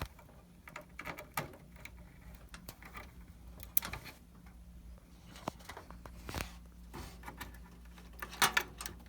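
Light, scattered clicks and taps of hands handling plastic cable connectors and parts inside a PC case while a front-panel HD audio cable is fitted, with sharper knocks about four, six and a half and eight and a half seconds in, over a faint steady hum.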